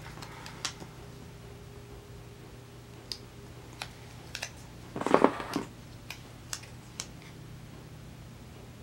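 Scattered small clicks and taps of paper stickers and washi tape being handled on a desk, with one louder, rougher rustle about five seconds in, over a steady low hum.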